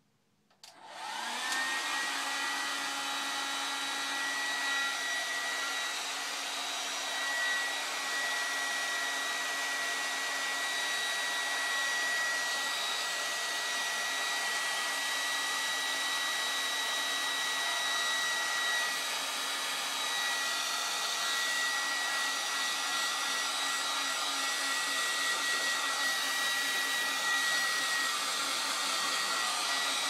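Handheld hair dryer switched on about a second in, its motor whine rising as it spins up, then running steadily: a high whine over the rush of blown air.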